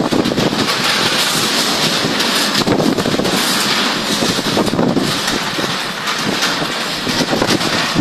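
Heavy rainstorm: rain pouring down hard and strong wind gusting across the microphone, a loud steady roar with rapid flutter.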